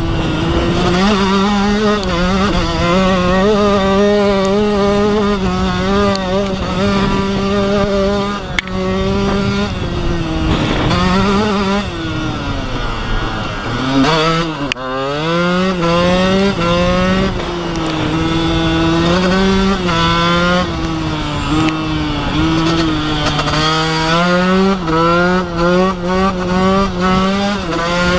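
KTM SX 125 single-cylinder two-stroke engine at high revs under load, its pitch wavering as the throttle is worked. About halfway through, the revs fall off sharply and then climb back up. Wind rush on the microphone underneath.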